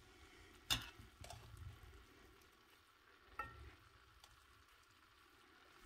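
Two light clinks of a utensil against a dish, about a second in and again near the middle, with faint handling noise while the salad is mixed.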